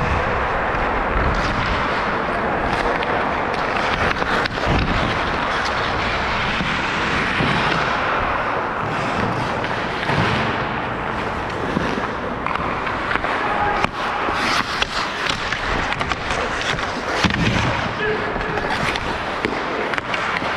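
Ice hockey play: skates scraping across the ice under a steady rush of rink noise, with sharp clacks of sticks and puck now and then, more of them in the second half.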